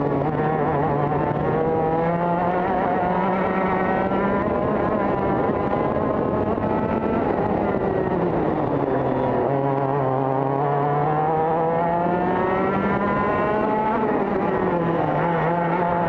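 TKM two-stroke kart engine at full racing revs, heard onboard. The pitch climbs along the straights, drops about nine seconds in and again near the end as the kart slows for corners, and rises again each time.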